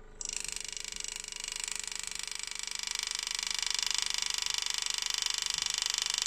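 Power-assisted engraving handpiece driving a graver through brass plate, a steady, rapid buzzing hammer as it cuts a line. It starts just after the beginning and keeps an even pulse throughout.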